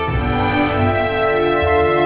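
Background music: sustained melodic tones over a held bass line, with a change of chord right at the start.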